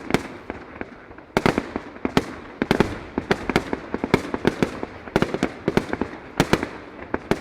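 Fireworks display: firework shells bursting in rapid, irregular bangs, several a second, with a continuous hiss between them.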